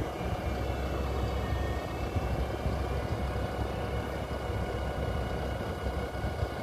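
AgXeed robot tractor running steadily as the tracked machine moves slowly forward, driving a rear-mounted spading machine through the soil. The sound is a continuous low rumble with a few faint, steady high whines above it.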